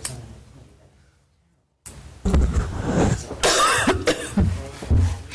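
A person coughing: a run of loud coughs that begins about two seconds in, after a moment of silence.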